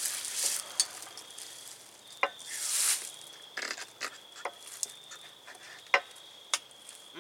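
Knife and fork clicking and scraping on a dinner plate, a handful of sharp separate ticks, with a brief rustle about two and a half seconds in.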